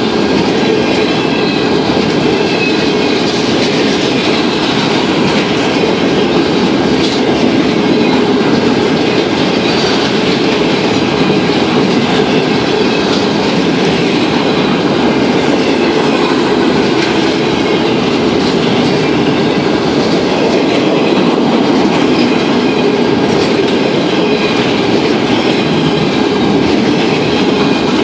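Empty freight flatcars rolling past at speed: a loud, steady rumble and rattle of steel wheels on rail, with a clickety-clack that does not let up.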